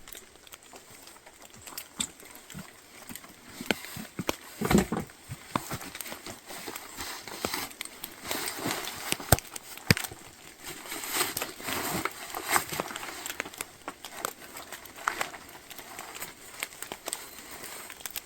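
Irregular rustling with scattered light knocks and clicks, and a duller thump about five seconds in.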